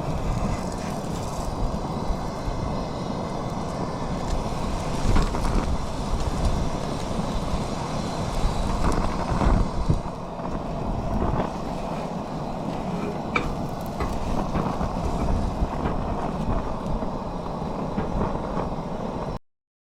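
Steady rumble of a vehicle on the move, with a few louder bumps along the way; it cuts off suddenly near the end.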